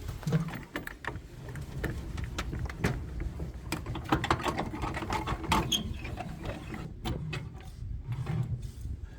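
Pickup truck towing an off-road trailer, driving slowly over a rough dirt track: a steady low rumble with frequent rattles and clunks from the rig bouncing over the ruts.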